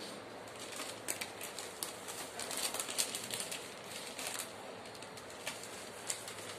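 A plastic bag crinkling as a hand covered with it mixes red chilli powder for mango pickle in a steel bowl: a run of quick, sharp crackles, thickest in the middle.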